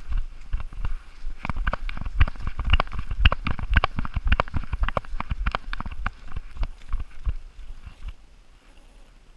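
Quick, irregular thumps and clicks of a Labrador retriever running on a leaf-covered forest trail with a GoPro harnessed to it: paw falls and the camera mount knocking. They are densest through the middle and die away about eight seconds in as the dog comes to rest.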